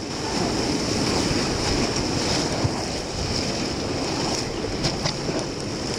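Rushing whitewater of a high-water river rapid heard from inside a paddle raft: a steady rush of water and splashing, with wind buffeting the microphone and a few short knocks near the middle and the end.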